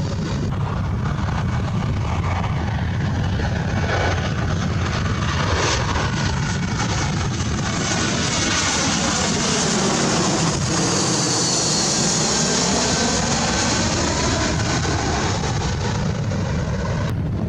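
Airplane engines running loudly as the aircraft passes close by, under a steady deep rumble. A sweeping, phasing change in tone deepens toward the middle, and a high whine is strongest about eleven to thirteen seconds in as the plane comes nearest.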